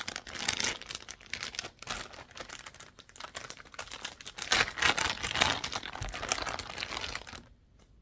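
Packaging crinkling and rustling as items are handled and unwrapped, a dense irregular crackle that stops near the end.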